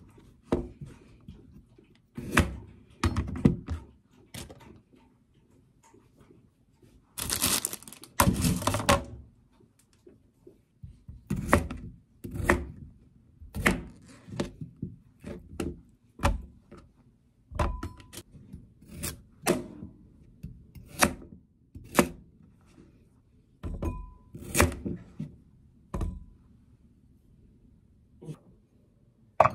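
Kitchen knife cutting through raw carrots and knocking on a cutting board: single chops, irregular, about one a second. About seven to nine seconds in there are two longer rasping sounds.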